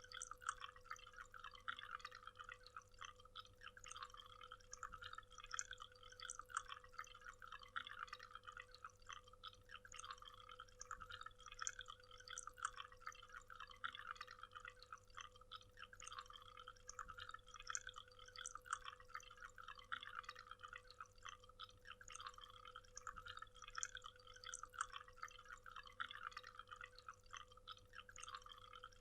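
A waterfall: faint, continuous water splashing and spattering, made of many small droplet splashes with no deep roar.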